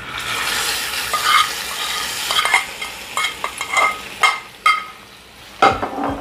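Hot oil with freshly roasted white sesame seeds poured from a small frying pan into thick tamarind chutney, sizzling as it hits (a tempering). The sizzle lasts about two and a half seconds, then a metal spoon scrapes and clinks against the pan to get the last seeds out, with a knock near the end.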